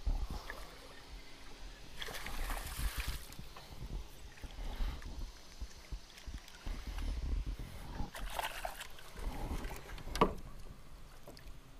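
A hooked largemouth bass splashing at the surface beside a wooden dock as it is reeled in, with bursts of splashing about two and eight seconds in and a sharp knock about ten seconds in.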